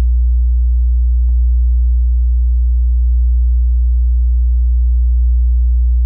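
Subwoofer playing a loud, steady deep sine tone, driven through a microwave oven transformer used as a filter. A faint click about a second in.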